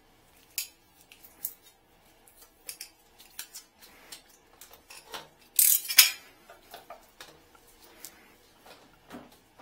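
Gloved hands handling plumbing tools and the plastic hose and fittings of a wet-dry vacuum: scattered clicks, knocks and light rattles, with a louder half-second scrape about six seconds in. The vacuum is not running.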